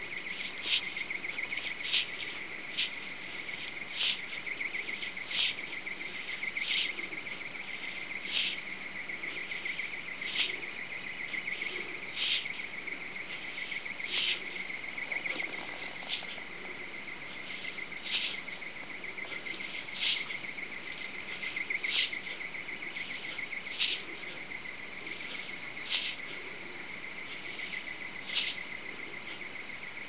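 Peacock butterfly's sound: a steady high-pitched trill with a sharper click every second or two, which the uploader takes for the noise it makes as it slowly opens and closes its wings.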